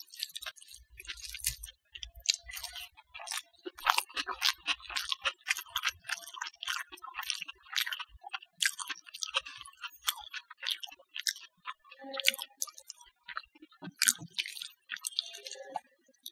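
Close-up eating sounds: fingers squishing and mixing rice with mashed potato and omelet on a plate, and chewing, heard as many quick, irregular wet clicks and crackles.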